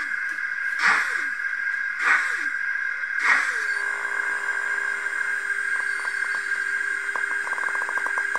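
Sound-decoder steam exhaust of a Roco H0 BR 85 model tank locomotive: slow, even chuffs about once every second and a bit, five of them. After the last chuff the chuffing stops and a steady tone with a run of quick clicks follows as the model comes to a stand.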